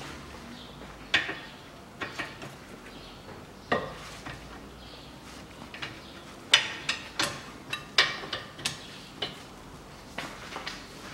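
Steel hand tools clinking and knocking against metal car parts: a dozen or so sharp, irregular metallic clinks, a few at first and then in quick runs through the second half, during work with a socket wrench on a front brake caliper.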